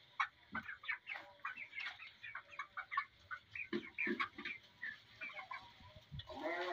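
A flock of 32-day-old broiler chickens calling: many short, high peeps and clucks in quick, irregular succession, with a few lower calls about midway.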